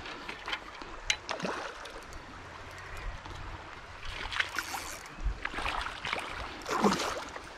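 Water splashing in several short bursts as a hooked smallmouth bass thrashes at the surface while being played in toward the bank.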